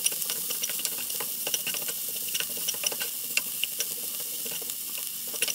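Chopped scallion, onion and chili flakes sizzling in sesame and cooking oil in a nonstick pan over low heat, with the spatula scraping and ticking as they are stirred. The pepper flakes are being fried slowly into chili oil so that they don't burn.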